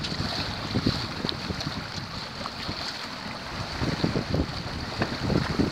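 Wind buffeting the microphone over a steady rush of water along the hull of a small sailboat sailing heeled in a fresh breeze. The buffeting grows stronger near the end.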